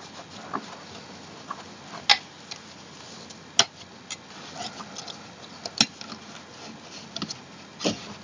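Scattered sharp clicks and knocks of small hardware and tools being handled while assembling an office chair, four louder clicks a couple of seconds apart with fainter ticks between.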